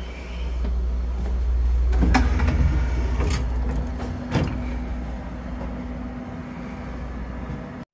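Inside a 255-series limited express train car: a steady low rumble with a few sharp clicks and knocks, the loudest about two seconds in and others near three and a half and four and a half seconds. A steady hum comes in about two seconds in, and the sound cuts off abruptly near the end.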